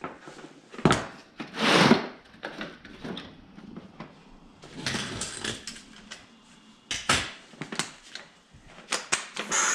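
Tools being handled: a few sharp clinks and knocks as a socket is picked up and readied for the spindle nut, with short patches of rustling in between.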